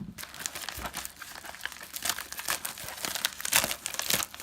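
Packaging crinkling and tearing as a mail package is opened, a steady run of irregular crackles and rustles.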